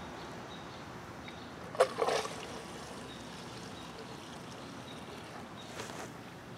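Fresh gasoline pouring from a gas can into a lawn mower's fuel tank, a steady trickle. A brief sharper sound comes about two seconds in.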